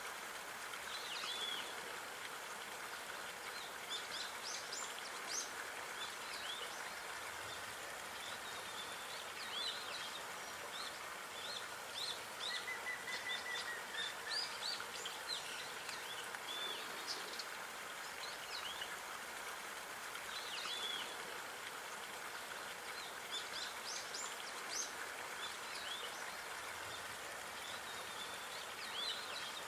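Small birds chirping and calling, short high notes scattered throughout, with one longer whistled note about halfway, over a steady outdoor hiss.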